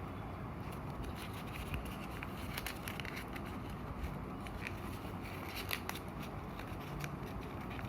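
A sheet of A4 paper being folded and creased by hand: soft crinkling with scattered light clicks over a steady background hiss.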